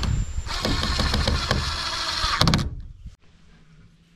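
Cordless drill running under load as it drives a screw into the wooden coop frame, with a brief pause about half a second in; it stops abruptly a little under three seconds in.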